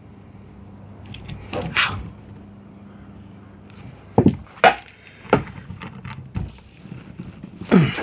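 Small metal hose fittings clinking and clicking as they are handled: a compression nut and olive being worked onto a metal coolant pipe. A few short knocks, bunched together about halfway through, with another near the end.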